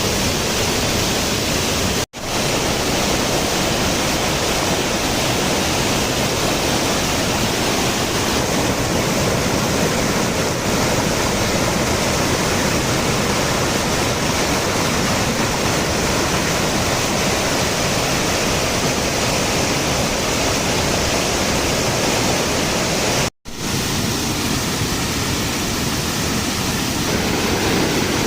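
Waterfall's steady rush of falling water, a dense even noise, cut off twice for an instant.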